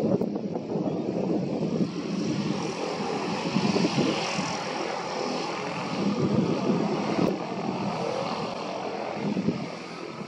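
Twin turboprop engines and propellers of a de Havilland Canada Twin Otter running as it taxis, a steady hiss over an uneven rumble.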